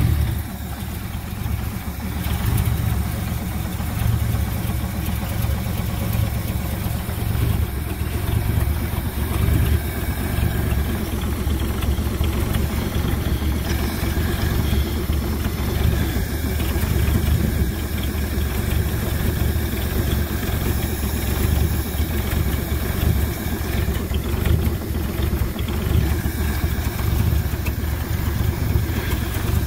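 1969 Ford C700 truck's 330 cubic-inch V8 idling steadily. It is running on the fuel left in the carburetor float bowls, with no fuel yet coming from the fuel pump.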